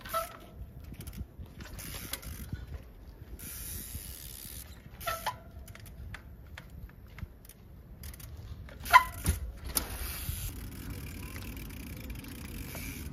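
Trials bike knocking against a steel railway rail as it is hopped along the track: three sharp metallic clanks with a short ring, at the start, about five seconds in and loudest about nine seconds in. Between them comes the fast clicking of the freewheel as the bike coasts.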